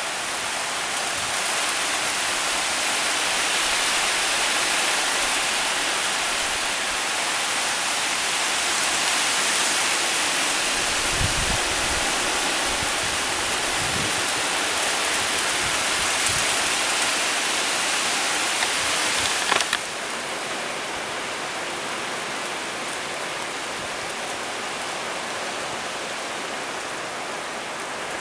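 Steady rain hiss during a thunderstorm, with a few brief low rumbles near the middle. About two-thirds through the sound cuts abruptly to a slightly quieter, even rain hiss.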